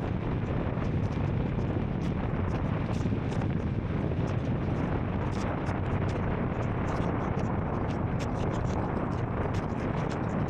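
Royal Enfield Scram 440 single-cylinder motorcycle engine running at a steady pace, with wind noise on the microphone and many short, high ticks scattered through it.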